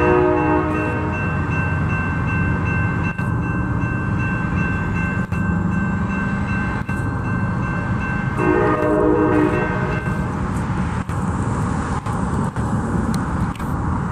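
Train horn blowing a chord, the blast cutting off about a second in, then a second blast from about eight to ten seconds in. Between and under the blasts runs the steady rumble of a passing train.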